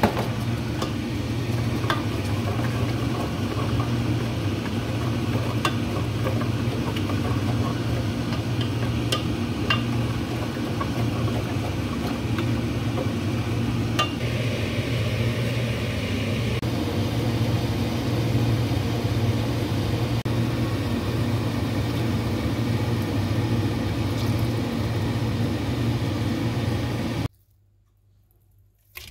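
Curry sauce boiling in a stainless steel pot over a steady low hum, with a few light clicks of a wooden spoon against the pot as it is stirred. The sound cuts off suddenly near the end.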